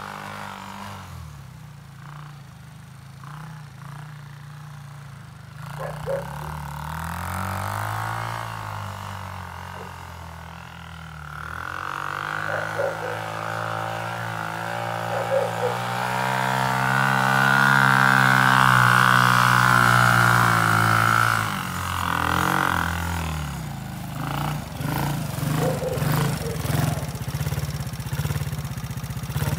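Small 125 cc single-cylinder four-stroke ATV engine running as the quad is ridden through snow, its note rising and falling with the throttle. It climbs and gets louder through the middle, holds high for a few seconds, drops back about two-thirds of the way in, then runs close by with short uneven blips near the end.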